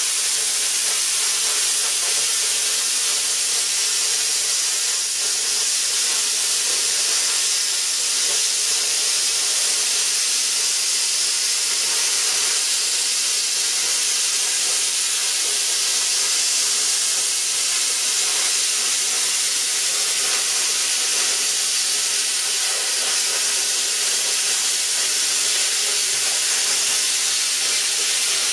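Plasma cutter at 40 amps slicing a long line through steel sheet: a steady, unbroken hiss of compressed air at 100 PSI rushing through the torch with the arc.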